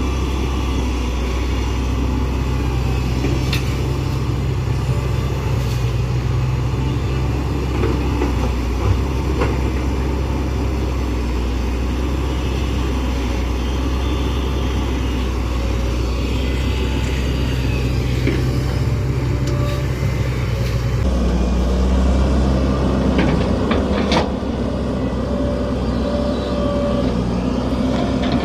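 Hitachi excavator's diesel engine running steadily while it works, with a few short knocks; a little over two-thirds of the way through the engine note changes and grows louder.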